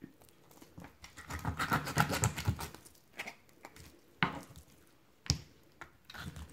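Chef's knife cutting through a whole raw fish along the backbone on a wooden cutting board, making a rough crunching and scraping of blade on flesh and bone. Two sharp knocks come later, about four and five seconds in.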